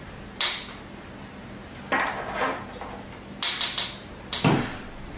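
Hard clinks and knocks of soldering station parts being handled: a soldering iron handle and its metal wire bracket on the station base. Single strikes about half a second and two seconds in, three quick clinks a little past halfway, and a louder, duller knock near the end.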